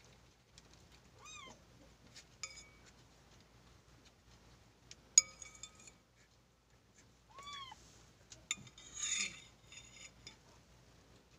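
Metal spoon clinking against a ceramic soup bowl, a few sharp ringing clinks, the loudest about five seconds in. A cat meows twice, short calls that rise and fall in pitch, about a second in and again near the middle.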